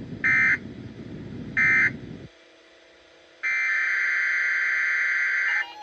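Emergency Alert System SAME digital data bursts, harsh buzzing squawks. Two short end-of-message bursts about a second apart close the weekly test over a low radio hiss. After a brief quiet gap, a longer header burst for the next alert starts about three and a half seconds in.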